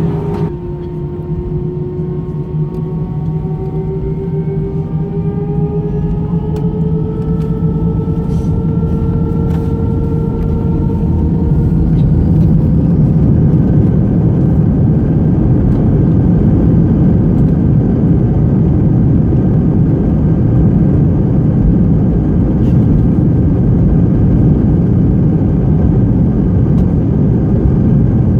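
Airbus A319 jet engines spooling up, heard from inside the cabin: a whine rising in pitch over about the first twelve seconds as the sound grows louder, then a steady loud rumble. This fits the application of takeoff thrust and the takeoff roll.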